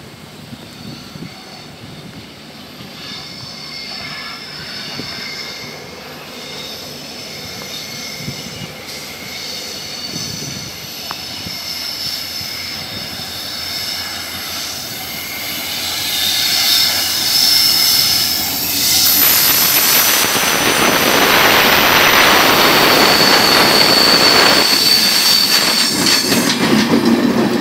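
Diesel-hauled passenger train approaching and running past close by. The rail noise grows steadily louder, with high thin squealing tones from the wheels on the rails, and from about two-thirds of the way through it becomes the loud rush of the coaches rolling past.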